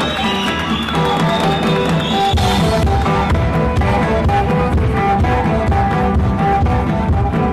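Music with held instrumental notes over a steady beat; a heavier low drum beat comes in about two seconds in.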